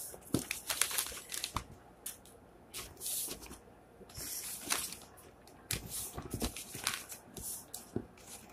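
A sheet of paper being folded over and over into a tight strip, creasing and rustling in irregular crackles.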